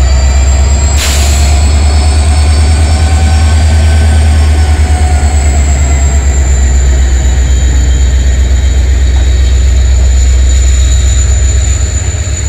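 WDP-4D diesel locomotive pulling a passenger train past, then its coaches rolling by: a loud steady low rumble with a high steady squeal over it, and one sharp clank about a second in.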